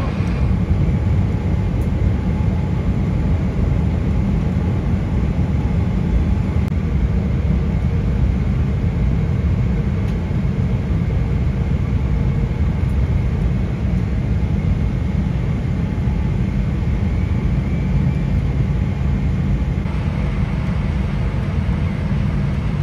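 Steady low rumble inside the cabin of a Boeing 777-300ER airliner, the noise of the aircraft's engines and airflow heard from the seat.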